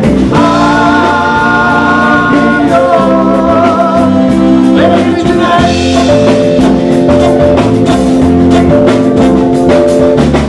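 Band music with singing over guitar and a steady drum beat, held chords changing every few seconds.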